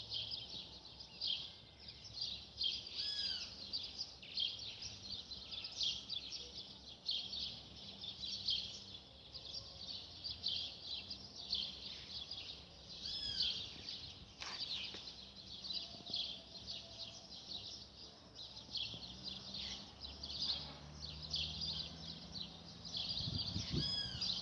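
A dusk chorus of many small birds chirping densely and without a break, with a louder, arching call from one bird repeated about every ten seconds. A low hum joins near the end.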